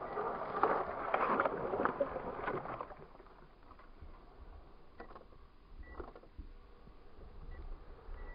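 Radio-controlled scale rock crawler on Mickey Thompson Baja Claw tyres working slowly over snow and dry grass: scratchy crunching and rustling for the first few seconds, then quieter with a few scattered clicks.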